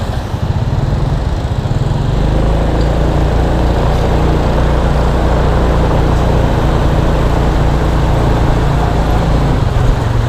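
Small motor scooter's engine running steadily under way in city traffic, with a heavy low rumble of wind on the camera microphone; the sound swells slightly about two seconds in.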